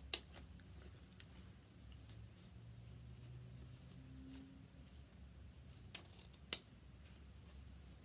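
Scissors snipping ribbon: a few sharp snips, one just after the start and two close together about six seconds in, over a faint low hum.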